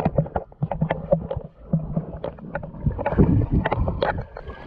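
Water splashing and sloshing, with many irregular knocks and a low rumble.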